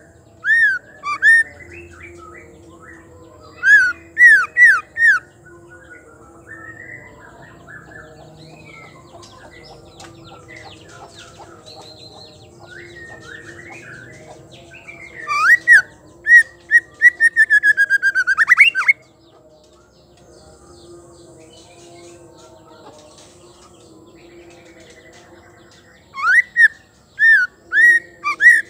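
Female white-rumped shama singing: short phrases of loud, clear whistled notes, with softer twittering in between and a fast, rising rattle of repeated notes about two thirds of the way through. It is song used to provoke male shamas into singing.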